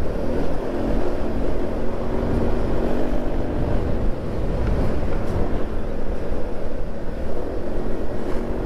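Motorcycle riding at speed: its engine running steadily under wind noise on the microphone and road rumble.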